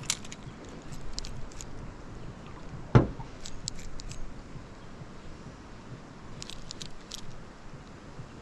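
Small sharp metallic clicks and jingles from fishing gear being handled and retrieved, with one dull thump against the boat about three seconds in, over a steady low rumble.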